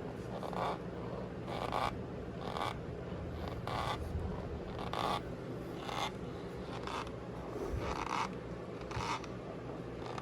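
Cornstarch powder squeaking as it is squeezed and compressed, in about nine short squeaks roughly a second apart.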